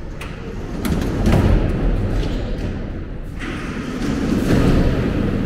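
St. Petersburg metro train noise: a low rumble that swells twice, with several sharp thuds about a second in and a rushing hiss over the last two seconds.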